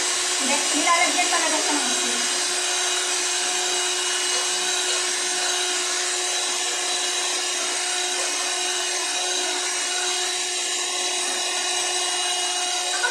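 Electric hand mixer running steadily with its beaters in a bowl of batter: a steady motor whine.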